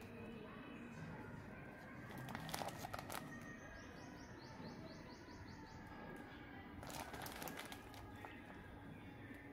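Clear plastic packaging bag crinkling as it is handled, in two short bursts about two and a half and seven seconds in. Between them comes a quick run of faint high chirps.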